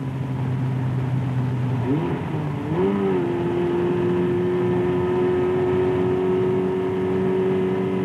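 An engine running steadily at low speed, then revved up and down twice about two seconds in and held at a steady higher speed, as in an exhaust-gas test of an engine.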